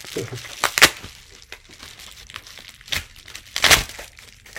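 Shipping packaging being torn open by hand: crinkling and ripping, with a few sharp crackles, the loudest about a second in and again near the end.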